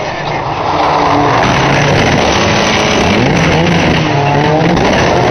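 Several banger racing cars' engines revving as the pack comes round the bend and reaches the camera, getting much louder about a second in, with engine pitch rising and falling. Tyres scrabble on the loose track surface underneath.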